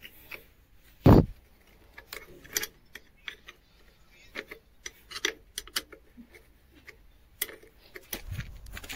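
Metal tools clicking and scraping as a truck battery is unbolted and swapped, with one heavy thump about a second in.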